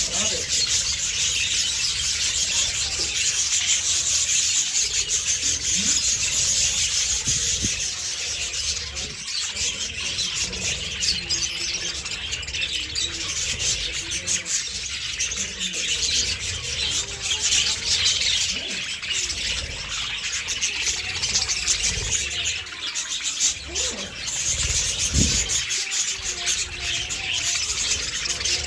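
A flock of budgerigars chattering and chirping continuously, a dense, high-pitched chorus of many birds at once.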